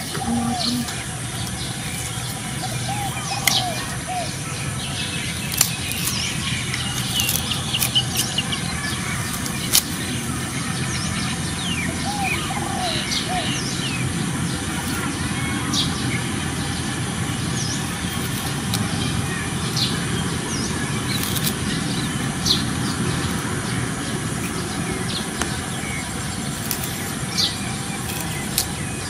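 Small birds chirping here and there over a steady rushing background, with a few sharp clicks.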